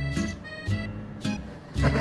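Background music: a steady bass line of held notes with sustained instrument tones above it.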